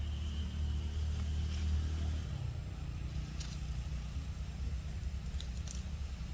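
Steady low rumble with a faint engine-like hum that fades out about two seconds in; a few short high squeaks come near the middle and near the end.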